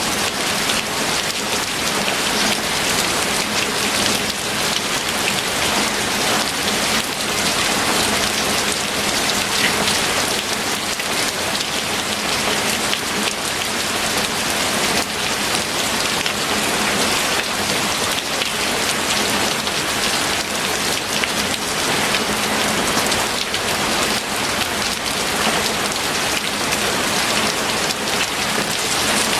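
Steady, heavy rain falling on a surface, a dense even hiss of many drops with no pauses or thunder claps.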